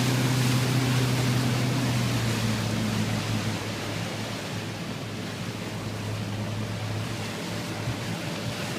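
Motorboat engine running and easing off over the first few seconds, its low hum fading under a steady rush of wind and water.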